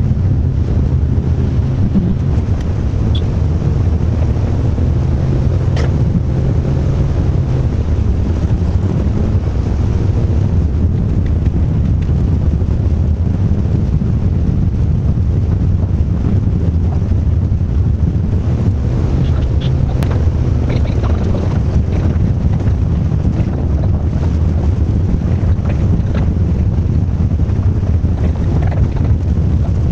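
Vehicle engine and road noise heard from inside the cab while driving: a steady low drone with a rushing hiss over it.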